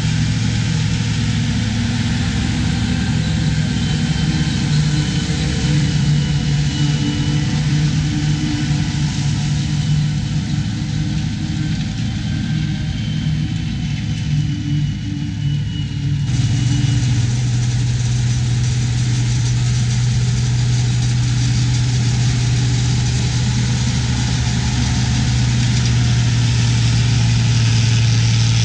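Farm diesel engine running steadily under load while a forage harvester chops corn silage. About sixteen seconds in, the sound changes abruptly to a steadier low engine hum.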